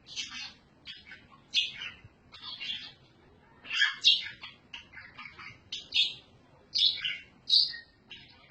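A bird chirping: short, high-pitched calls repeated irregularly, about once or twice a second.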